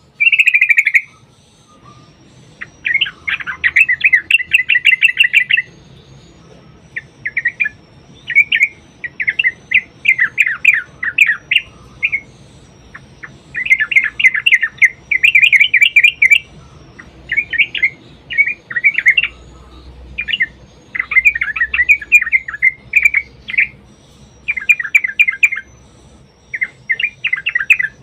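Yellow-vented bulbul (trucukan) singing in repeated long runs of rapid, bubbling chattering notes, each run lasting one to three seconds with short pauses between.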